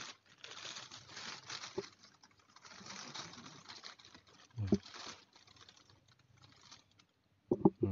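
Clear plastic wrapping rustling and crinkling while hands handle a cap and work its adjustable strap buckle, with a small click about two seconds in.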